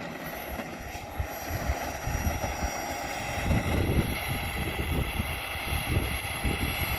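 Small gas turbine of a radio-controlled model jet running with a thin, steady high whine over a broad rushing jet noise, growing louder over the first few seconds.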